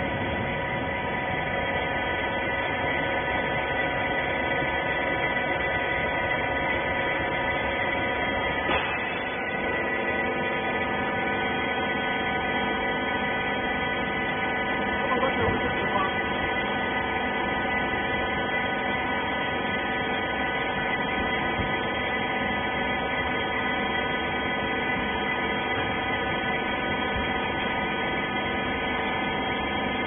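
Hydraulic rag baler's pump motor running with a steady multi-tone hum, with a couple of faint knocks about nine and fifteen seconds in.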